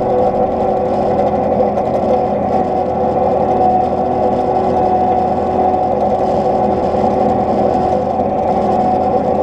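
John Deere 9500 combine running steadily while harvesting, a constant machine drone with a steady whine.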